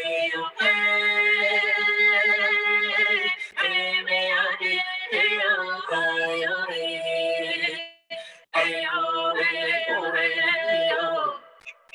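Recorded Indigenous song: singing in long held notes over a steady low drone, with a brief break about eight seconds in.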